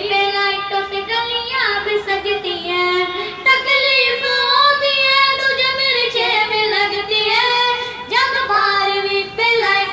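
A boy singing an Urdu naat into a handheld karaoke microphone, in long held notes that glide between pitches.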